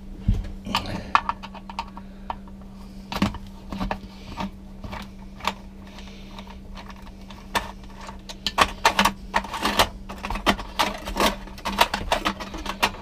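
A screwdriver turning the worm screw of the steel band clamp that holds the toilet on, loosening it: irregular runs of small metal clicks and ticks, thickest near the end, over a steady low hum.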